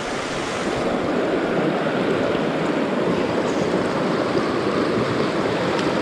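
Small rocky river rushing steadily over stones in a shallow riffle, close to the microphone. It grows a little louder over the first second, then holds steady.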